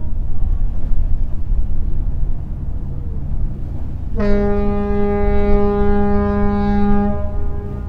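A ship's horn sounds one long, steady blast of about three seconds, starting about four seconds in, over a continuous low rumble.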